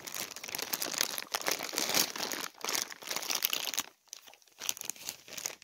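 Plastic packaging bag crinkling as it is handled and torn open around a boxed ceiling-mount chime strobe. The steady crackle breaks off a little before four seconds in, and a few shorter rustles follow.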